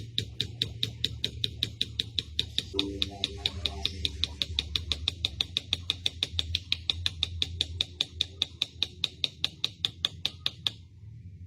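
Rapid, evenly spaced ticking, about five clicks a second, over a low hum; it cuts off sharply near the end.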